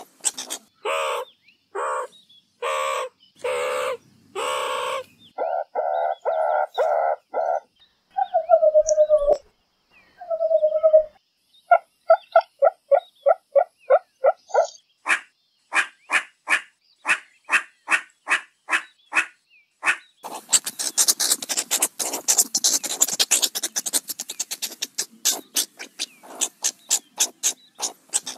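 A run of meerkat calls: strings of rapid chirps and clicks, several longer harsh calls, and two short falling whines about a third of the way in, then a dense, hissy stretch of fast calls in the last few seconds.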